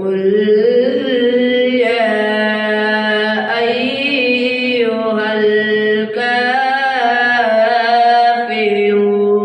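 A boy's voice reciting the Quran in melodic tajwid style, drawing out one long, wavering phrase that opens with "Qul".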